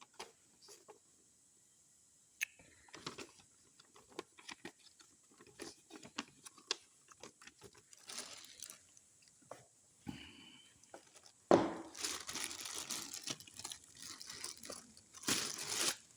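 Handling of a fishing reel's packaging: scattered light clicks and knocks, then, about two-thirds of the way through, a few seconds of crinkling and rustling, as of a plastic bag or paper.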